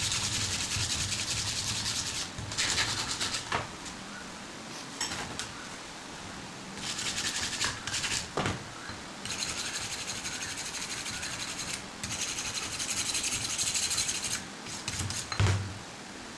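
Knife handle being sanded by hand: quick back-and-forth rubbing strokes in several runs of a second or two each, with short pauses between. A few sharp knocks, the loudest near the end.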